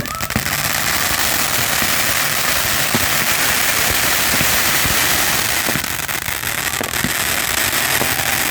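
Fireworks going off in a dense, continuous shower of small rapid pops. It starts suddenly and eases a little near the end.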